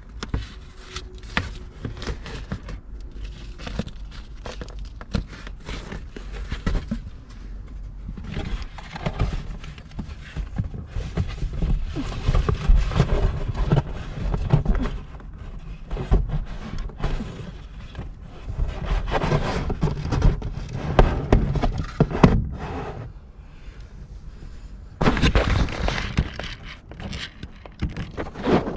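Rustling, scraping and irregular soft thumps of bedding, a pillow and a stiff black window-cover panel being moved about by hand in a truck's back seat. A loud rubbing noise comes in near the end as a hand handles the camera right over the microphone.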